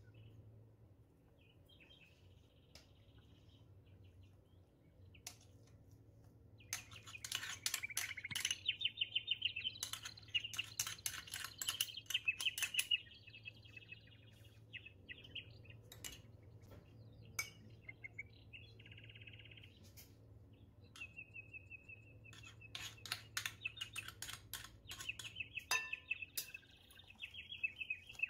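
Small birds chirping and trilling in bursts, mostly from about seven to thirteen seconds in and again near the end. Short clinks of a metal spoon against a glass mixing bowl come through among them.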